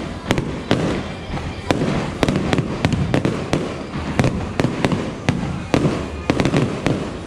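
Aerial fireworks shells bursting overhead: sharp bangs in quick, irregular succession, about two a second, over a continuous crackle.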